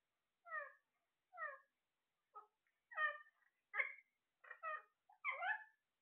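Ring-necked parakeets giving a rapid series of short, harsh calls, many sliding down in pitch, about one every half second.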